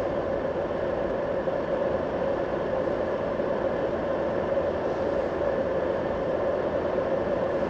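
Steady hum and hiss heard inside a car, with an even drone throughout and no distinct events.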